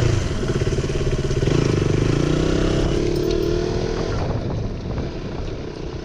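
Motorcycle engine running, its pitch rising and falling a little, then fading over the last two seconds.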